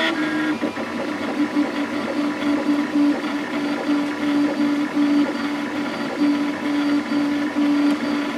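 FlashForge Creator X 3D printer running a print: its stepper motors whine in short, repeating notes, about two a second, as the dual-extruder head moves back and forth laying down the first layers.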